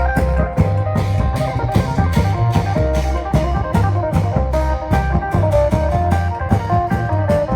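Thai Isan klong yao long-drum band music: drums and cymbals keep a fast, even beat under a heavy bass and a stepping lead melody.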